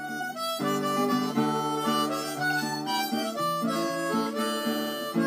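Instrumental music with held chords and a melody that moves from note to note.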